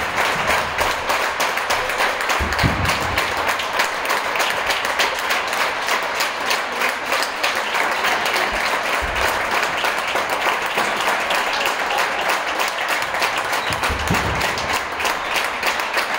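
Sustained applause: many hands clapping at a steady level.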